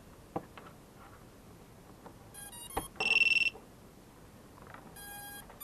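Power-up beeps from the BLHeli_32 ESC, sounded through the EMAX RS1106 brushless motors as a 3S battery is connected. There is a short run of stepped tones a little past two seconds in, a louder high beep about three seconds in, and more tones near the end.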